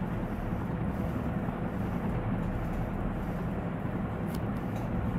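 Steady low background rumble and hum with a faint constant tone, and a couple of faint ticks about four and a half seconds in.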